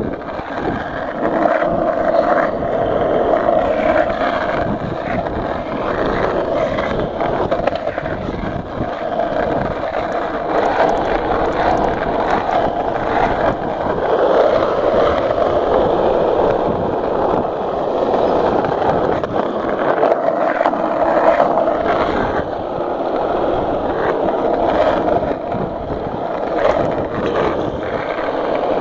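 Skateboard wheels rolling over rough asphalt: a steady rolling noise with scattered small clicks and knocks.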